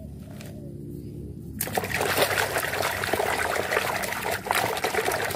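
Water splashing and sloshing as a hand scrubs plastic toy animals in a basin of soapy, muddy water. It starts suddenly about a second and a half in.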